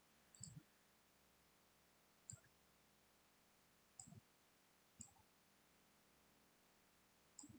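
Faint computer mouse clicks, five of them one to two seconds apart, over quiet room tone.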